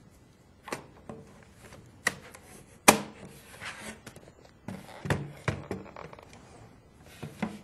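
A Dell Vostro 1310 laptop being handled: its battery slid into the bay and clicked home, then the laptop turned over and set down on a wooden desk. A string of clicks and knocks with soft rubbing between them, the sharpest about three seconds in.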